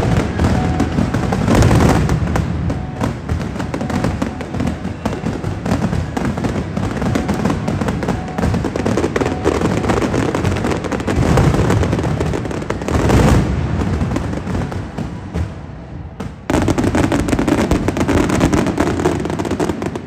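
Fireworks finale: many shells bursting and crackling in rapid, overlapping volleys with booms. The bursts stop abruptly about sixteen seconds in, giving way to a steadier noise.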